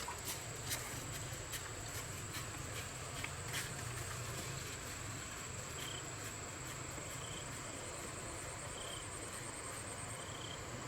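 Insects trilling steadily at a high pitch, with short chirps every second or so in the second half, over a low steady hum.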